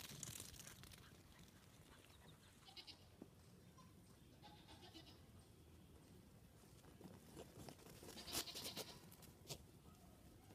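Nigerian dwarf goat kids bleating faintly, a few short calls, the loudest about eight seconds in.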